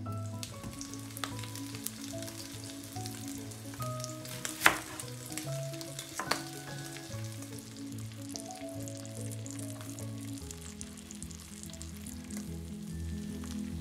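Beef steak sizzling in hot oil in a frying pan, under soft background music with held notes. A sharp tap stands out about four and a half seconds in, with a smaller one near six seconds.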